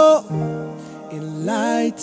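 Music: a song with a male voice holding and bending sung notes over the backing track.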